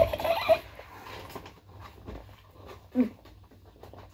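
A child's brief whimpering sounds: a short cry right at the start and a short falling one about three seconds in, with faint handling rustle between them.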